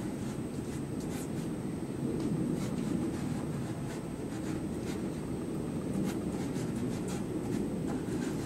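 Soft pastel stick scratching on paper in short, irregular strokes over a steady low background hum.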